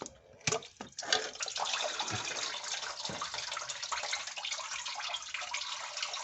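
Leftover engine coolant trickling and splashing out of the open thermostat housing's water tube into a drain pan, starting about a second in after a couple of light knocks.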